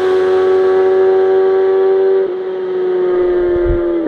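Intro sound effect of a high-revving racing engine held at steady revs, a loud, even tone that steps down slightly in pitch about two seconds in.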